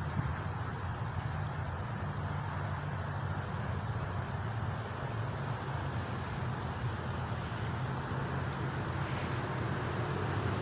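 A steady low rumble with a low hum in it.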